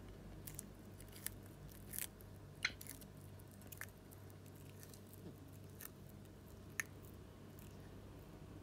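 Russian tortoise biting off and chewing a molokhia (jute mallow) leaf: several short, crisp crunches at irregular intervals, the loudest about two and a half seconds in.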